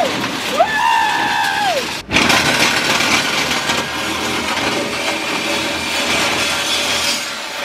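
Cordless power tool working on metal under a pickup truck: its motor spins up, holds and winds down once, then after a brief break gives a steady, rough cutting noise against the exhaust pipe.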